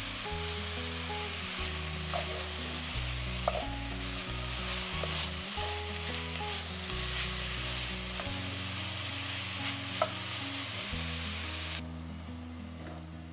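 Diced onion and carrots frying with a steady sizzle in a cast-iron pot as a wooden spoon stirs them, with a couple of sharp knocks of the spoon against the pot. The sizzle cuts off suddenly near the end.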